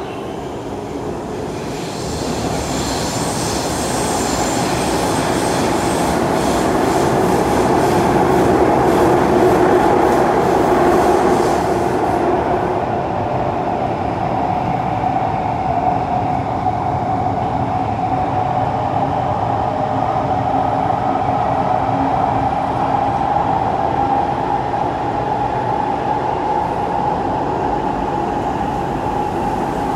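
Kawasaki C151 metro train running in an underground tunnel, heard from inside the carriage: a steady rumble of wheels on rail with a motor whine that slowly rises in pitch as the train gathers speed. A high hiss with a fine rattle sits over it for the first ten seconds or so.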